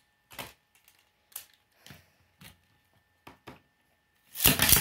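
Light plastic clicks as Beyblade tops are fitted onto their launchers, then near the end a loud, brief ripping whir as the ripcords are pulled and two tops are launched into a plastic tray, where they start to spin with a low hum.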